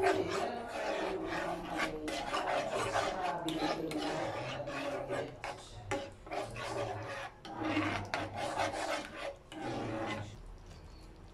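Metal spoon stirring a cream sauce in a non-stick frying pan, scraping against the pan bottom in rapid strokes. The scraping stops near the end.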